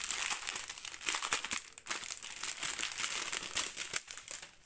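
Plastic packaging of diamond painting drills crinkling and crackling as it is handled and pulled at in an effort to open it, dying down near the end.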